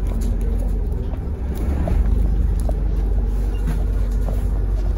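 MAZ-203 city bus heard from inside the passenger cabin: a steady low engine and drivetrain rumble, with a few light rattles.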